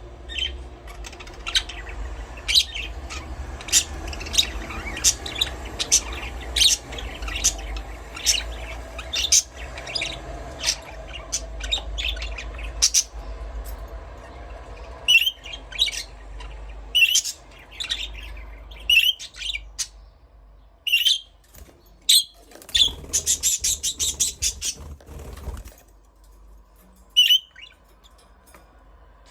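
Budgerigars chirping: short, sharp chirps about once or twice a second, thinning out after the middle, with a quick run of rapid chatter about three-quarters of the way through.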